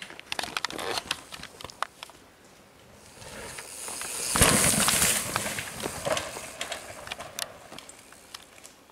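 Mountain bike ridden over a dirt jump: tyre noise on dirt builds to a thud on landing about halfway through, then tyres roll and hiss on loose soil and fade away.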